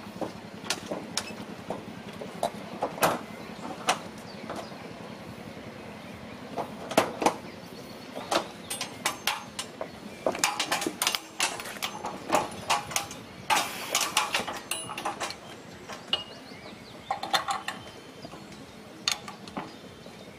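Wheels of a miniature ride-on railway train clicking and knocking over the rail joints, an irregular run of sharp clicks that grows busier midway, over a steady low hum.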